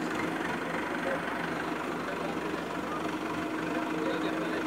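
An Ace crane's engine running steadily with a constant hum while the crane holds and moves a lifted load.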